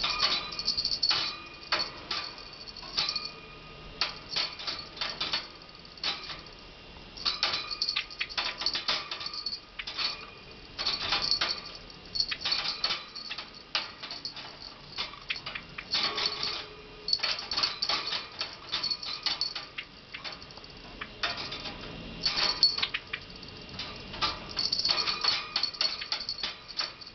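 Small bell jingling in irregular bursts of rapid rings, rung by a pet Java sparrow.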